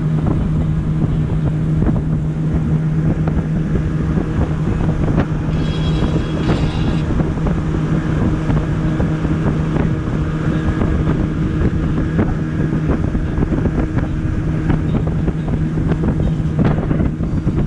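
Motorboat engine running steadily at an even pitch, with wind buffeting the microphone.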